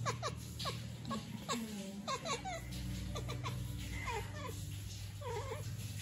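Orange kitten chattering at prey: runs of short, squeaky chirps that slide up and down, coming in little clusters every half second or so. It is the sound a cat makes while watching prey it cannot reach, here a flying dragonfly.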